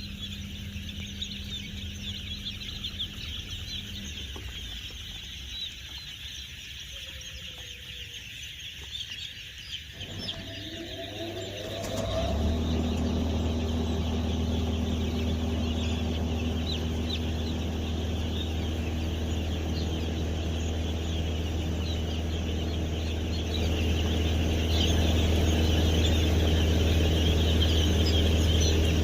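A flock of brooding chicks cheeping continuously. About ten seconds in a motor starts, rising in pitch as it spins up and then running with a steady low hum under the cheeping, which grows a little louder again later.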